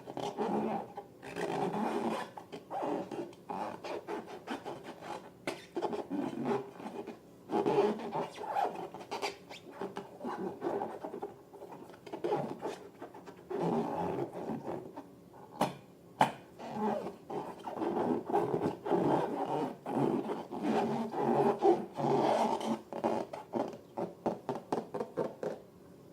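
Balloons and slime being handled by hand: irregular rubbing and scraping with many small sharp clicks.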